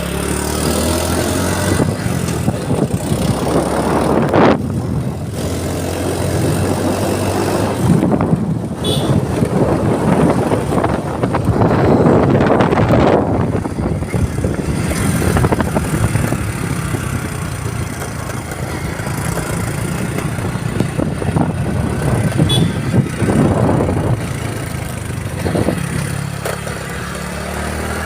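A road vehicle's engine running steadily while travelling, with road and wind noise that swells louder several times.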